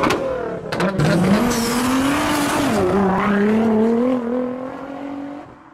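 Race car engine sound effect revving up: its pitch rises about a second in, dips briefly, then holds and slowly climbs before fading out near the end. Sharp clicks come just before the rev starts.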